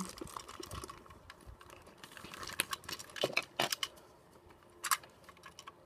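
A clear plastic bag crinkling as a plastic Tomy Plarail toy train coach is slipped out of it and handled, making scattered small clicks and crackles. There are sharper clicks about three to four seconds in and another near five seconds.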